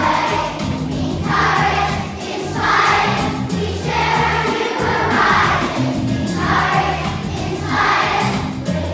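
Many voices singing a song together in phrases, over an instrumental accompaniment with a stepping bass line.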